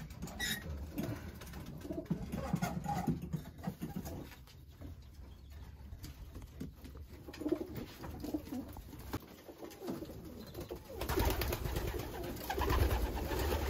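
Homing pigeons cooing in a loft, low repeated coos throughout, with a louder burst of rustling near the end.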